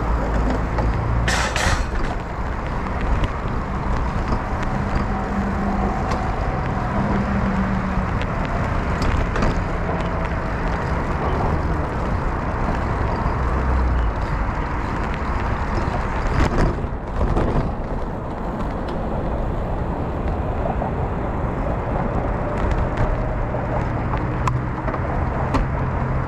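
Steady rush of wind on the microphone with low road rumble while riding a bicycle, broken by a couple of brief knocks, one about a second and a half in and another near the middle.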